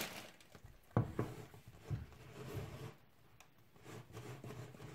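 A round, film-wrapped smartwatch box is set down on a wooden tabletop, giving a sharp knock about a second in and a couple of lighter taps. Soft handling and rubbing follow as it is turned and straightened.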